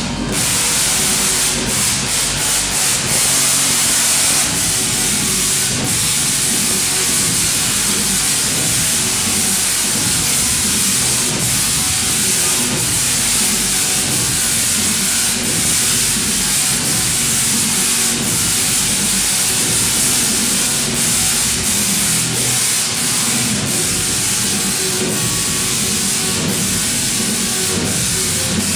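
Large Tesla coil firing, its electric arcs making a loud, steady hissing buzz with a few faint steady tones beneath.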